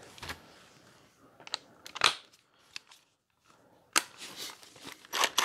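Socket, extension and cordless impact wrench being handled: a few separate sharp clicks and metal knocks, about two seconds in, again at four seconds and near the end, as the socket is fitted up for the wheel's lug nuts. The wrench's motor is not running.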